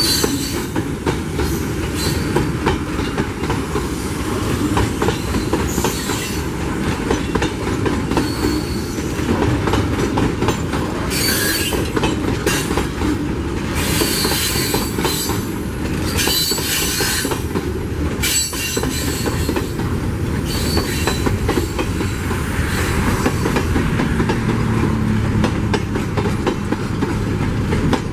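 Loaded freight cars rolling past at close range, first mineral hopper cars and then container flatcars: a steady rumble of steel wheels on rail, with rapid clicking over the rail joints and a high wheel squeal that comes and goes.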